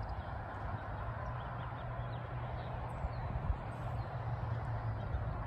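Steady outdoor background: a low, even rumble with wind buffeting the microphone.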